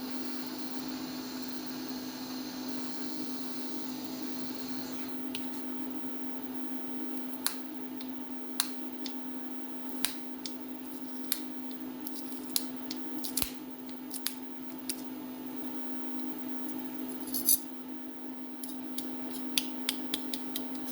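Steady workshop hum with a soft hiss that stops about five seconds in, then scattered light clicks and taps from handling a small part at the bench.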